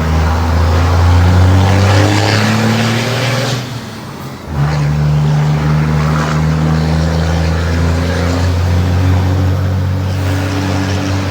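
Ford Cargo 2422 dump truck's diesel engine revved through a straight-pipe exhaust, held at high revs for about four seconds, dropping back briefly, then held up again for about seven seconds.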